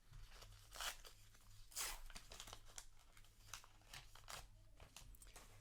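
Paper trading-card booster pack being torn open and handled: a few short, faint tearing and rustling sounds over a steady low hum.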